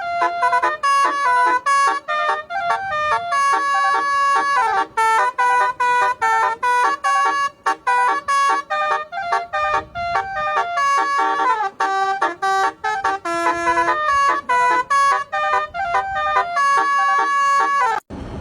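Bus telolet horn playing a fast melody, one pitched note after another with short breaks between them. It cuts off abruptly near the end.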